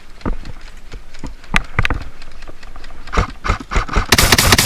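Scattered single clicks and knocks, then near the end a rapid run of clicks lasting about half a second, fitting an airsoft gun firing a short full-auto burst.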